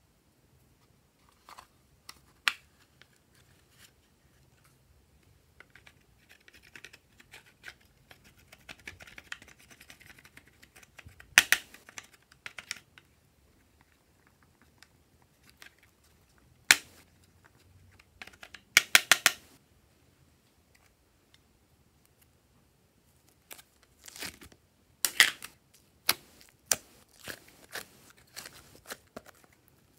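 Hands handling hard plastic toy cases and containers, with sharp plastic clicks and taps and a stretch of soft scraping. Near the end comes a quick run of crackles as blue slime is pulled out of a plastic tub.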